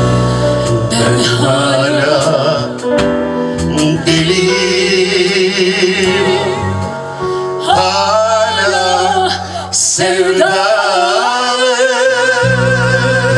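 Live duet, a man and a woman singing into microphones over a small live band with drums and keyboard. Their held notes in the second half waver with strong vibrato.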